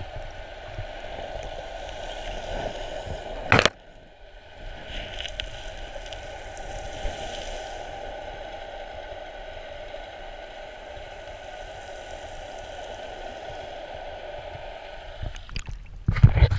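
Muffled underwater water noise picked up by a submerged camera, a steady hiss, with one sharp knock about three and a half seconds in. Near the end the camera breaks the surface and water splashes and sloshes loudly around it.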